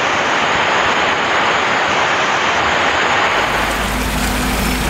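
Heavy rain pouring down steadily. About three seconds in the sound changes to a fuller, deeper rain noise with a steady low hum beneath it.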